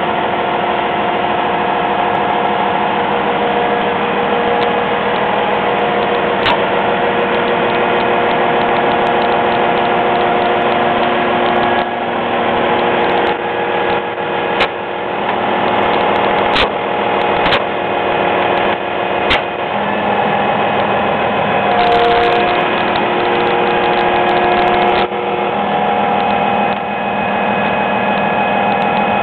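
Volvo EC700BLC tracked excavator's diesel engine running steadily as the machine tracks off a low-loader trailer, its pitch shifting a few times in the second half. Sharp metallic clanks from the steel tracks and plates come about five times in the middle.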